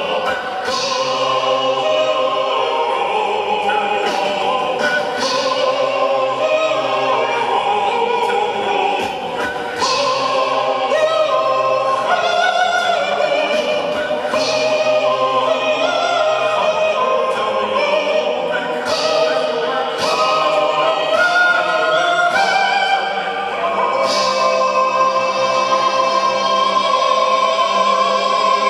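Music with a choir of voices singing sustained, flowing lines.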